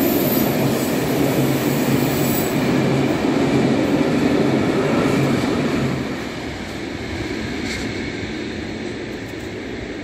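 Empty open-top freight wagons rolling past on the rails, with wheel squeal. The noise drops sharply about six seconds in as the end of the train passes, then fades.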